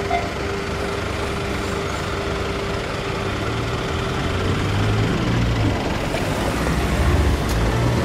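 A Japanese level-crossing warning bell cuts off right at the start, and a steady hum carries on while the gate arms rise. From about five seconds in, cars pull away and drive over the crossing, their engines and tyres growing louder.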